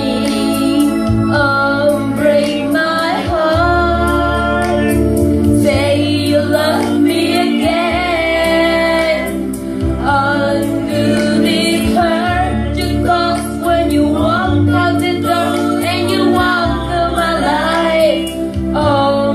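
A woman singing into a handheld microphone, her voice amplified, with music underneath, holding and bending long notes.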